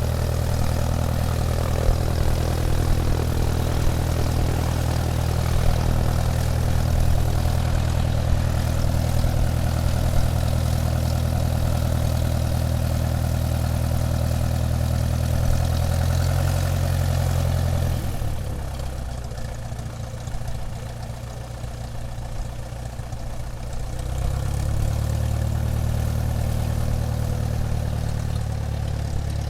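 Airplane engine running steadily as the plane taxis, a low droning hum. About two-thirds of the way through it eases back and quietens for several seconds, then picks up again.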